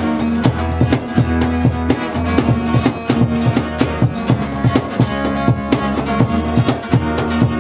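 A country band playing live, with strummed guitars and bass guitar keeping a steady rhythm.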